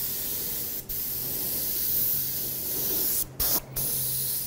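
Airbrush spraying paint with a steady hiss. It breaks off briefly about a second in, and twice more in quick succession a little past three seconds, as the spraying stops and starts.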